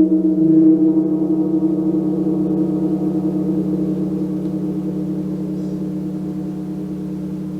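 Gong ringing and slowly dying away: a deep, sustained hum with many overtones that wavers and pulses as it fades, after a slight swell about a second in.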